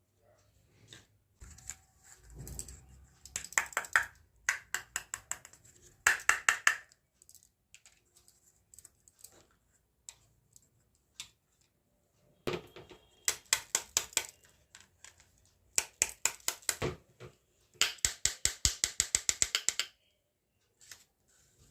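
Small plastic toy kitchen pieces being handled, making sharp clicks in several quick runs of about ten a second, with quieter gaps between.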